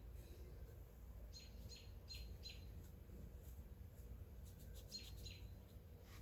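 Faint bird chirps over a low steady hum: four short calls in quick succession about a second and a half in, two more near the end, with a few faint clicks between them.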